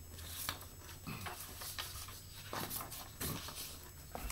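Paper rustling as sheets of notes are handled and turned: about half a dozen short rustles and scrapes, over a steady low hum.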